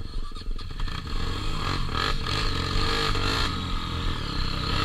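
Honda XR 250 Tornado's single-cylinder four-stroke engine running under load on a dirt trail, with rattles and scrapes from the bike over rough ground.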